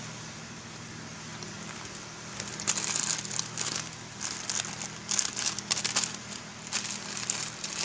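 Plastic crinkling and rustling in irregular bursts from about two seconds in, as squishy toys or their plastic packaging are rummaged through and handled, over a faint low steady hum.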